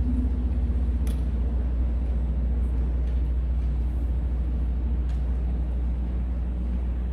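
Steady low outdoor rumble, with a faint hum above it and a light tick about a second in.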